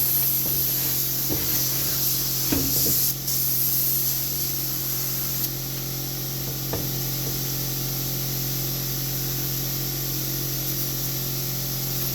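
Air hissing out of a dirt bike tire's valve stem as the pressure is let down after seating the bead, with a few light knocks; the hiss cuts back about five and a half seconds in.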